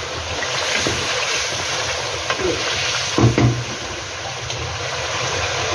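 Potatoes, tomatoes and spices sizzling steadily in hot oil in an aluminium pot during the bhuna frying stage, with a wooden spoon stirring at first. A short knock sounds about three seconds in.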